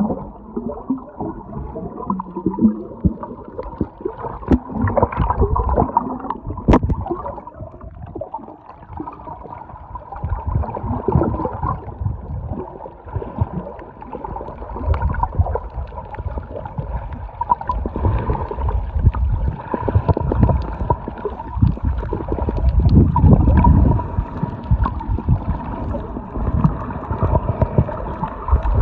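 Underwater sound through a camera held below the surface: muffled gurgling and sloshing of water against the housing, with irregular knocks and bumps. A steady hum runs underneath throughout.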